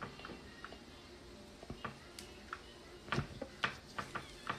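A cigarette being lit with a lighter and drawn on: a few faint, scattered clicks and crackles, more of them in the second half.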